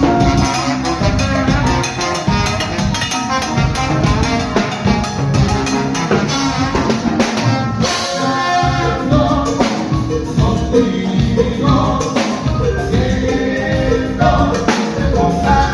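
Salsa-style tropical band music played live: drum kit and Latin percussion under a sung melody.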